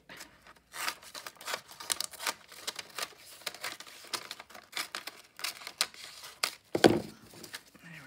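Scissors cutting through a sheet of pianola roll paper: an irregular run of quick snips and paper rustles. A louder thump near the end.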